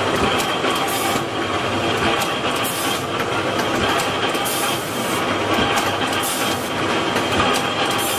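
Mic-12-1 automatic beer can filling and seaming machine running: continuous mechanical clatter with frequent small clicks and knocks, and short bursts of hiss every second or two.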